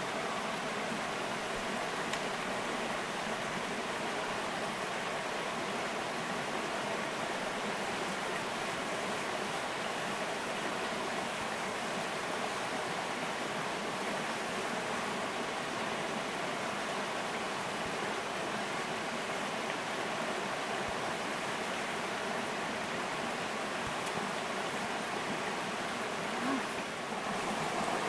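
Creek water flowing: a steady, even rush.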